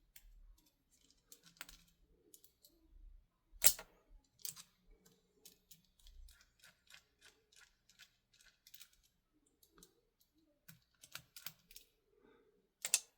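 Small clicks and taps of an airsoft rifle's barrel and hop-up unit being handled, with a sharper click a little under four seconds in and another near the end.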